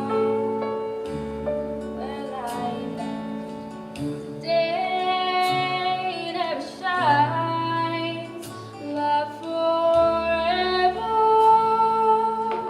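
A woman singing a slow song, holding long notes with some sliding between pitches, over instrumental accompaniment with guitar.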